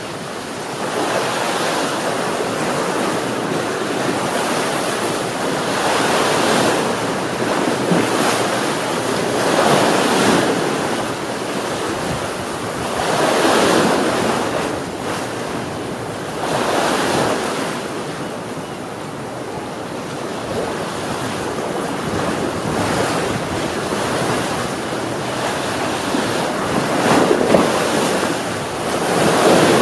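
Ocean waves breaking and washing on the shore, a steady rush of surf that swells every few seconds, with wind noise on the microphone.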